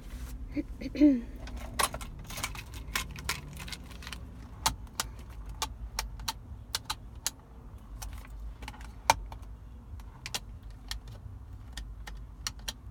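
Irregular sharp clicks and light rattles, many of them spread unevenly through the whole stretch, over a low steady rumble.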